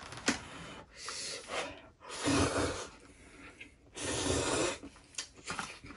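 A person slurping instant ramen noodles: three long, noisy sucking slurps, the second and third loudest.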